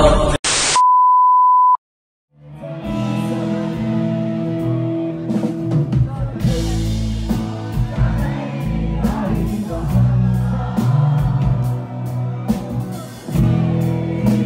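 A loud noise cuts off, followed by a single steady high beep lasting about a second and a brief silence. A live band then fades in: a man singing over acoustic guitar and drums.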